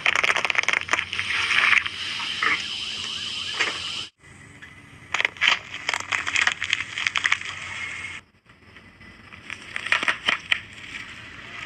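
Car tyre rolling over and crushing crunchy objects: dense crackling and snapping. The sound cuts off abruptly about four seconds in and again about eight seconds in, with new crunching after each cut.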